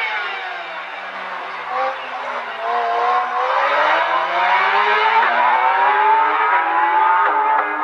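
Several motorcycle engines running together, their pitch dropping as they slow, then rising steadily as they accelerate.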